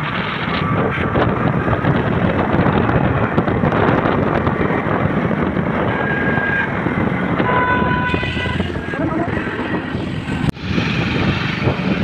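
Wind rushing over the microphone of a moving motor scooter, with the scooter's engine and tyres running steadily underneath. A few short high tones sound about six to eight seconds in, and the sound drops out for an instant near the end.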